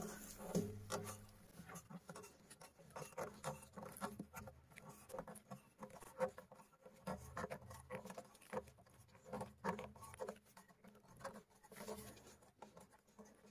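Fingers scraping and picking packed feed out of a feed grinder that has choked with feed, making faint, irregular small taps, scratches and crumbly rustles.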